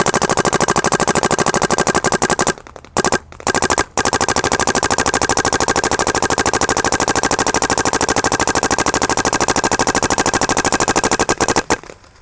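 Proto Reflex Rail paintball marker firing long strings of rapid shots in ramping mode. There is a brief break and a couple of short bursts about three seconds in, then one long unbroken string that stops near the end.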